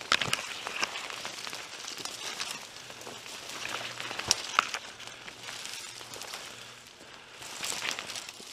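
Footsteps crunching through dry fallen leaves and brush, with twigs and branches scraping and cracking in irregular crackles; a few sharper snaps about four seconds in.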